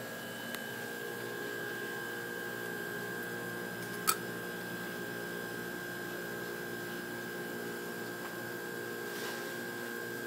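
Steady hum of laboratory equipment with a constant high whine, and a single sharp click about four seconds in.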